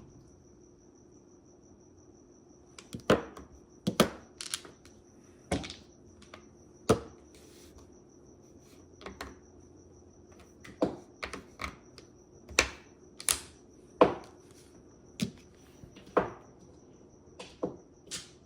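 Mahjong tiles clacking as they are picked up, set down and shuffled on the racks and table: sharp, irregular clicks, about one a second, with a short pause in the middle.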